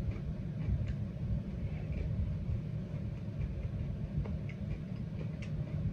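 Person chewing food, with faint scattered mouth clicks, over a steady low rumble.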